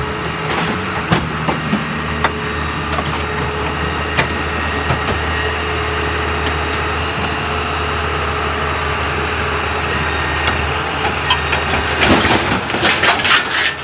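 A heavy vehicle engine running steadily at idle, a constant low hum, with scattered sharp clicks and knocks; the sound grows busier and more irregular near the end.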